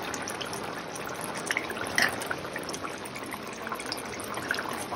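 Thick first coconut milk pouring from a steel cup into a pot of stew, with a steel spoon stirring it in and now and then clicking against the pot, sharpest about two seconds in.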